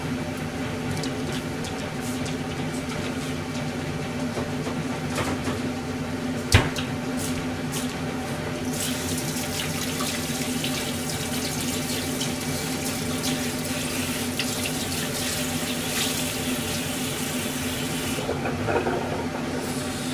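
Kitchen tap running into a stainless-steel sink while bowls are rinsed, from about nine seconds in until near the end. Before it come scattered clinks of dishes and one sharp knock, the loudest sound, about six and a half seconds in, all over a steady low hum.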